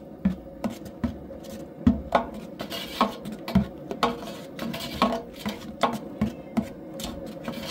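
Long metal spoon clinking and scraping against a large aluminum stockpot while caramelizing sugar is stirred, in irregular taps about two or three a second.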